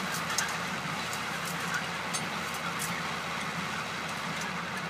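Diesel tractor engine running steadily as it pulls a hay rake through cut hay, with scattered light clicks over the engine hum.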